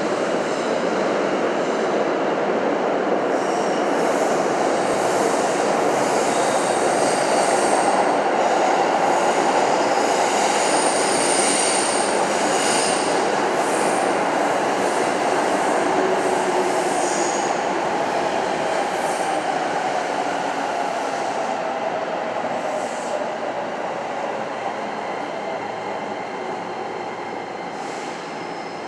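Electric commuter train running along the underground platform, its rumble building and then slowly fading, with brief high wheel squeals about halfway through.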